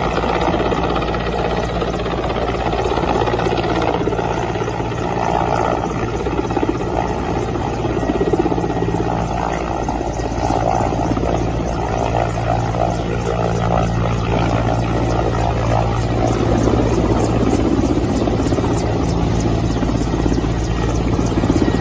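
Helicopter running steadily, a continuous drone of engine and rotor.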